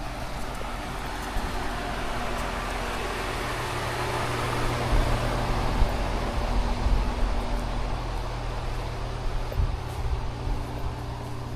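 Engine-driven pressure-washing rig running steadily, with a hiss of spraying water over the engine that grows louder in the middle.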